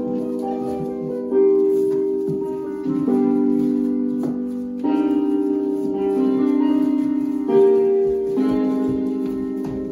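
Slow piano music: held chords that change every one to two seconds.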